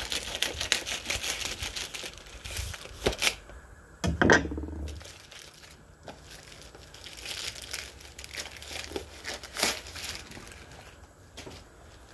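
Plastic mailer bag crinkling and tearing as it is slit open and pulled apart by hand, in two spells of rustling with a quieter gap between. A short louder pitched sound stands out about four seconds in.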